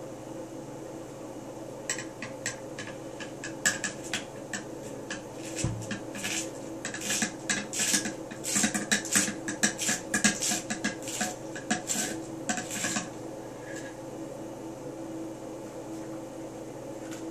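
A cleaning rod with a paper-towel mop worked in the chamber of an AR-15 (M4-type) upper receiver: rapid, irregular metallic clicking and scraping. It starts about two seconds in and stops a few seconds before the end.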